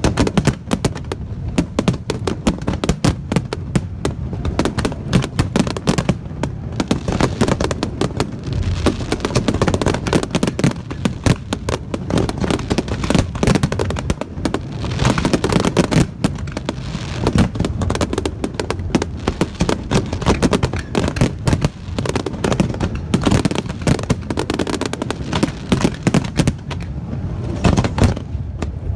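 Fireworks finale: aerial shells bursting in a dense, continuous barrage of bangs.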